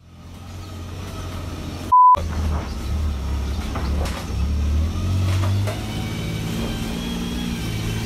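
Low steady rumble of vehicle engine noise, with a short loud single-pitch beep about two seconds in.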